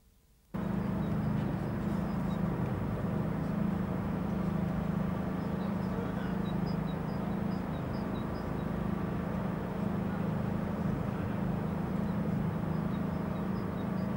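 Steady outdoor background rumble that cuts in suddenly about half a second in, with faint high chirps or ticks now and then.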